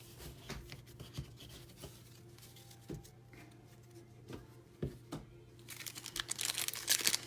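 A few light clicks of cards being handled, then a trading-card pack wrapper torn open and crinkled, starting about six seconds in.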